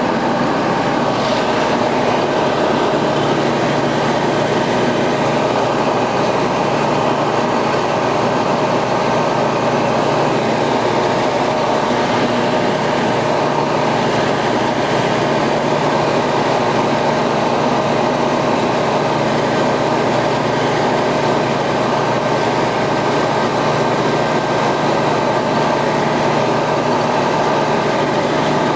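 Ultralight aircraft's engine and propeller running steadily in cruise flight, with the steady rush of airflow, heard from inside the cockpit.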